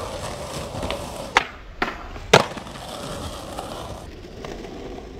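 Skateboard wheels rolling on pavement, then two sharp clacks of the board on the ground about a second apart, the second the louder, with a smaller knock between them.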